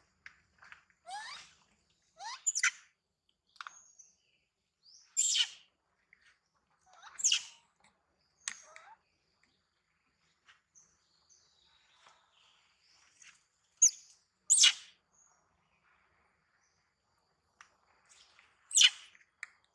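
Short, high-pitched animal calls, about ten of them, some sweeping sharply upward, coming a second or a few seconds apart with quiet between.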